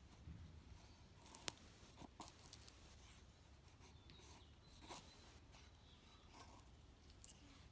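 Faint, sparse scraping and rustling of hand work, with a few sharp clicks, the clearest about one and a half seconds in and another near five seconds.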